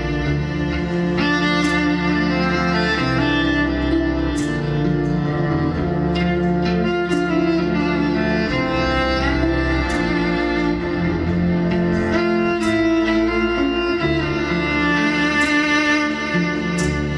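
Electric cello bowed live over looped layers of its own playing: a bowed melody on top of sustained lower cello parts and bass.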